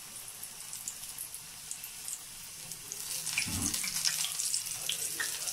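Coated chicken piece frying in hot oil in a pan: a steady sizzle full of small crackles, growing louder about three seconds in, with a dull low bump around then.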